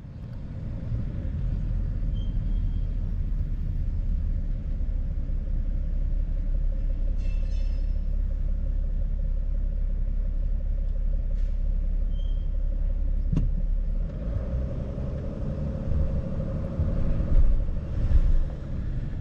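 Vehicle engine and road noise heard from inside the cabin while driving slowly through town: a steady low rumble. About fourteen seconds in, the engine note rises and grows louder as the vehicle pulls away from a stop.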